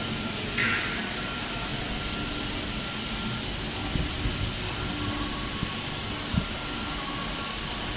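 A PVC pipe extrusion line running: a steady mechanical drone and hiss, with a short burst of hiss about half a second in and a few short knocks in the second half.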